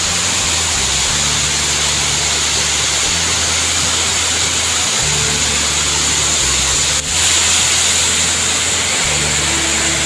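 Steady rushing of a waterfall, with low, held background-music notes that change every second or so underneath. A single click about seven seconds in, after which the sound is slightly louder.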